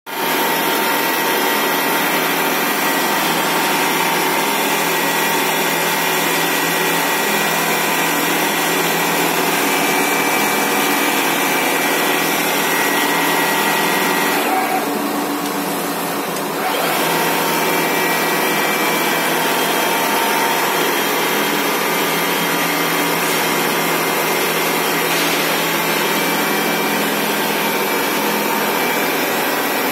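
Computerized quilting machine running as its needle head stitches a pattern into a wool quilt. It makes a loud, continuous mechanical noise with steady high whining tones, which drops for about two seconds around the middle.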